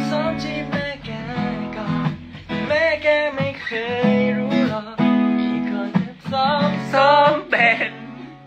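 Acoustic guitar strummed in steady chords while a man sings along, his melody gliding between long held notes.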